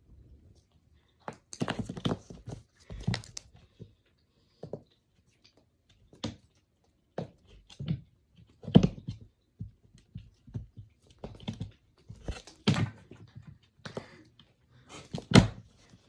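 A kitten pouncing and landing on a laminate floor while chasing a toy: irregular thuds and scuffles of paws, in short clusters, the loudest thumps about nine seconds in and near the end.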